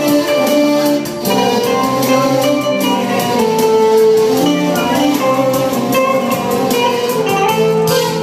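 Live band playing a Turkish folk tune at a sound check: a held melody over a steady drum beat.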